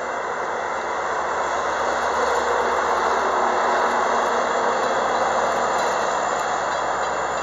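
A Metra MP36PH-3S diesel locomotive passes close by, its engine running steadily over the rumble of wheels on the rails. The sound swells to its loudest about halfway through as the locomotive goes by, then eases a little.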